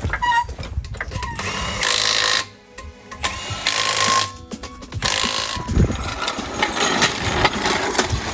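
Impact wrench running lug nuts onto a wheel in a series of bursts of rapid rattling, with short pauses between nuts, as the tire is mounted back on.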